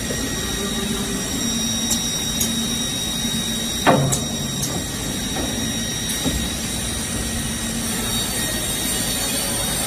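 Holztek CNC panel saw running: a steady machine hum with a high whine, a few light clicks, and one loud clunk about four seconds in as the stack of boards is fed.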